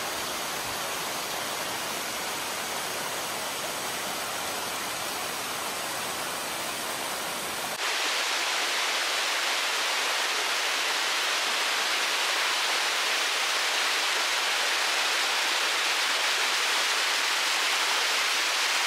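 Steady rush of falling water from a waterfall. About eight seconds in it switches abruptly to a louder, hissier rush with the low rumble gone.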